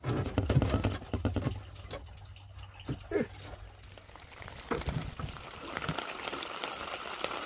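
Light drizzle pattering on the sea surface and the open wooden boat, coming in plainly near the end, after a few knocks and a low rumble at the start.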